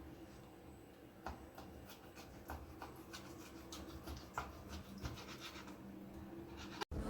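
Knife slicing beef steak on a chopping board: faint, irregular taps and scrapes.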